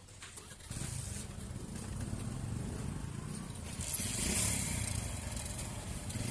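Small motorcycle engines running and pulling away in mixed road traffic, a steady low rumble that picks up about a second in. A brighter hiss joins it past the middle.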